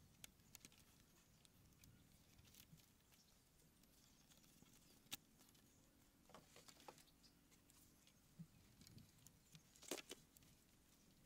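Faint, scattered knocks and clicks of wooden poles being handled and lashed with cord, with a sharp knock about halfway through and a louder cluster near the end; otherwise near silence.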